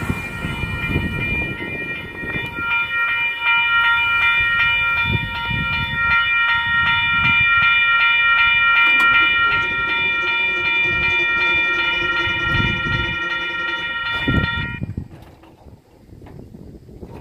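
Railroad grade-crossing bell ringing in quick, even strokes while the last cars of a Union Pacific intermodal freight train rumble and clank past. The bell cuts off suddenly near the end as the crossing clears, leaving it quiet.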